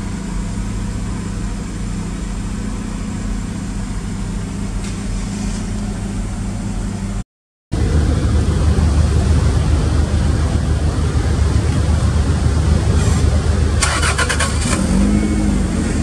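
Turbocharged Toyota 3S four-cylinder engine of an SW20 MR2 idling steadily, heard first from inside the cabin and then, after a cut, louder at its large straight-through exhaust tailpipes. A brief clatter sounds near the end.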